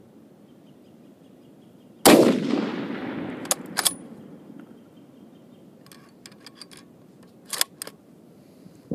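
A single rifle shot from an M1903A4 Springfield .30-06 bolt-action rifle, a sharp report about two seconds in that rings out and dies away over about two seconds. It is followed by a scatter of short metallic clicks, typical of the bolt being worked to chamber the next round.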